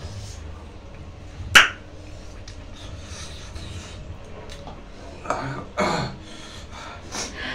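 Eating noises from pork leg eaten by hand: one sharp smack about a second and a half in, then short noisy mouth sounds around five to six seconds in and again near the end.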